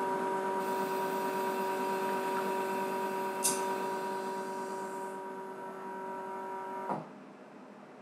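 Faema Faemina espresso machine's pump humming steadily as it dispenses hot water through the group head for an automatic pour-over, with a sharp click about three and a half seconds in. The pump cuts off with a click about seven seconds in, leaving a faint hiss.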